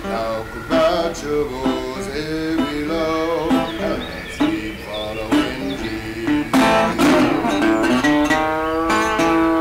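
Background music led by a strummed acoustic guitar, with a steady run of chords.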